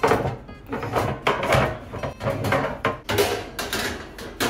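Pots and pans clattering and knocking against each other as someone rummages through a low kitchen cupboard for a pan, with a cupboard door bumping.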